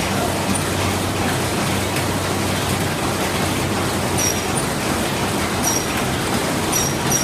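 Ham sausage machine running: a steady mechanical din over a low hum, with a few brief high squeaks in the second half.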